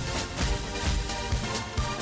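Electronic intro music with a steady beat, about two beats a second.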